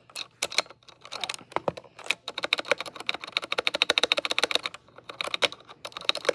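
Spacebar of a Womier WK61 mechanical keyboard with red linear switches being pressed over and over, a quick run of clacks that turns into a rapid flurry about two seconds in, stops briefly near the end, then starts again. The stabilizers sound smooth, without rattle.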